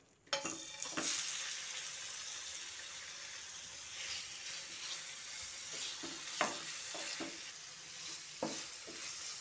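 Marinated chicken pieces sizzling in hot oil in a non-stick frying pan, starting suddenly as they go in. A wooden spatula scrapes and knocks against the pan several times as the pieces are stirred.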